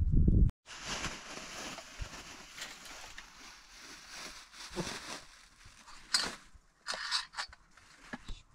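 A loud low noise cuts off about half a second in, followed by a faint steady hiss. A plastic bag crinkles as it is handled, in short crackly bursts, loudest about six and seven seconds in.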